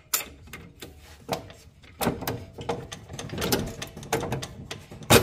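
A steel bolt being worked through a coilover's lower bracket and the steering knuckle. It makes irregular metal clicks and scraping, with a loud metal knock near the end as it seats.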